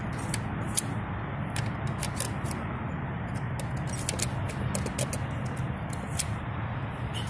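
A plastic keycard being worked in and out of a door's card-reader slot, making many sharp, irregular clicks over a steady low hum; the reader does not respond.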